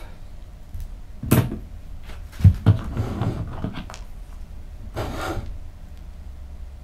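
Handling sounds at a workbench: a sharp click, then a cluster of knocks and thumps about halfway through as the cardboard model rocket is moved about on the cutting mat, and a short rustle near the end.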